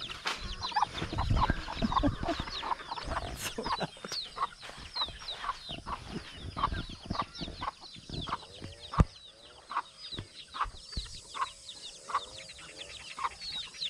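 Free-range chickens clucking while young chicks peep in many quick, high chirps. Scattered dull thumps sound underneath, the loudest about nine seconds in.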